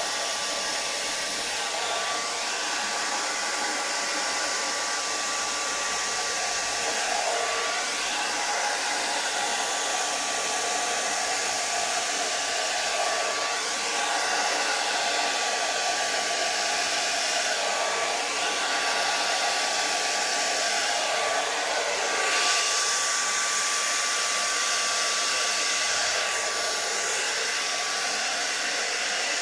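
Hand-held hair dryer blowing steadily, a continuous rush of air with a thin steady whine.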